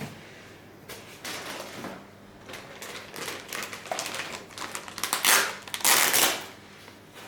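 Packaging being handled as a car head unit is taken out: a run of irregular clicks and rustles, loudest in two longer rustles about five and six seconds in.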